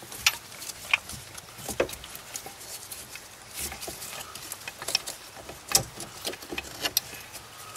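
Scattered light clicks and knocks with rustling as gloved hands handle the plastic connectors, wiring and brackets in a 1991 Mazda Miata engine bay, irregular handling noise with a few sharper clicks.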